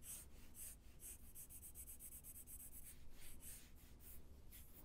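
Faint, quick back-and-forth strokes of a graphite pencil shading on paper, laying down a soft tone with the side of the lead.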